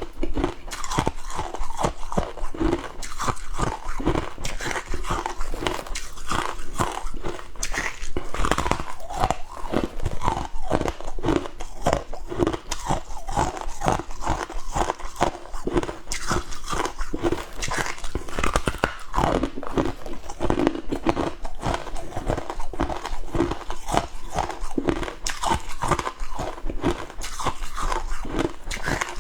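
Close-miked crunching and chewing of flaky freezer frost, bite after bite in quick, dense crackles.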